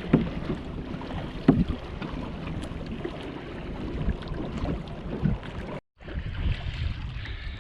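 Lake water rushing and splashing against the hull of a Hobie Mirage Tandem Island trimaran under sail and pedal drive, with wind buffeting the microphone. There are a few louder splashes through it, as waves wash over the boat.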